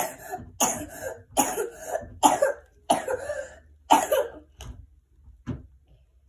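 A young child's coughing fit from flu: about six harsh coughs in quick succession, then two fainter ones near the end.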